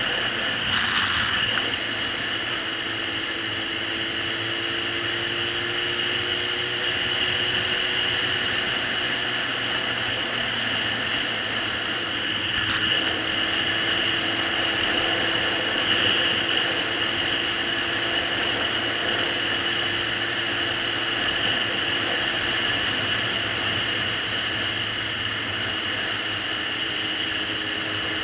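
Suzuki GSR750's inline-four engine running at a steady cruise, its note drifting slowly up and down in pitch, under a steady hiss.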